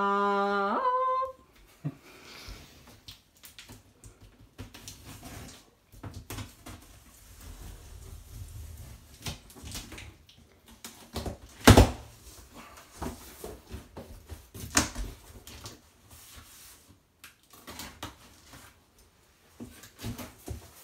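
A large cardboard box being opened by hand: rustling and scraping of cardboard and packing tape as the top is worked open and the flaps are folded back, with scattered knocks. The loudest is a single sharp thump about 12 seconds in.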